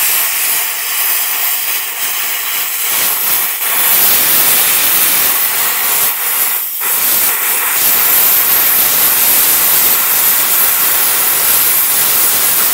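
Tenya Cut50 air plasma cutter cutting through steel plate: a loud, steady rushing hiss of the air-plasma arc, with brief dips about three and six seconds in.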